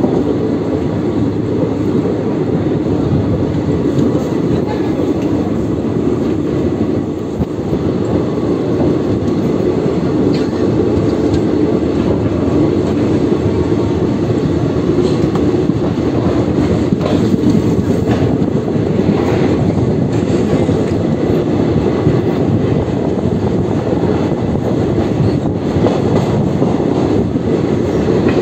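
Passenger train running at speed, heard from on board: a steady loud rumble of wheels on the rails with scattered clicks over rail joints.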